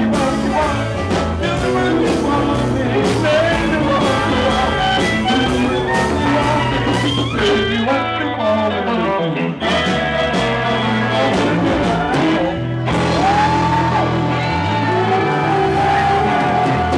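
Live blues band playing loud: electric guitar, fiddle, bass and drums, with a singer, the band thinning out briefly twice near the middle.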